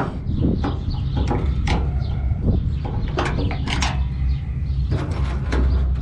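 Scattered clicks and knocks of a trunk lock and its linkage rod being handled and tried in a car's trunk lid, over a steady low rumble.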